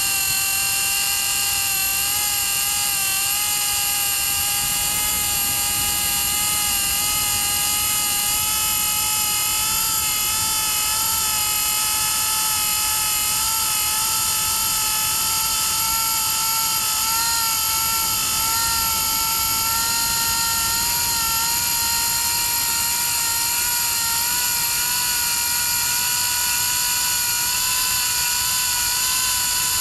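A fishing drone's propellers whining steadily as it carries a sinker and live bait out beyond the surf. The pitch creeps slowly higher, then drops right at the end as the drone slows.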